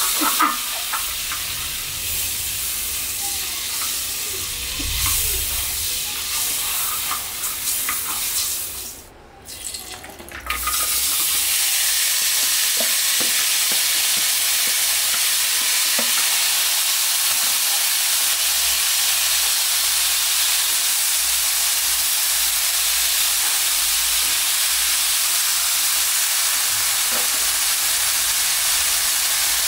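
Butter sizzling in a nonstick frying pan while a spatula stirs and scrapes it. About ten seconds in the sound briefly drops away, then a louder, steady sizzle follows as diced potato, carrot, tomato and onion fry in the butter.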